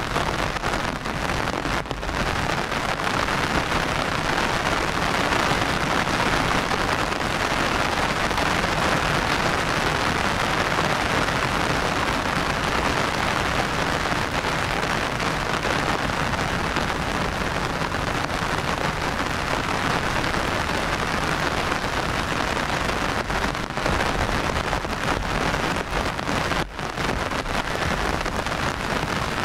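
Steady rain falling, a dense, even hiss.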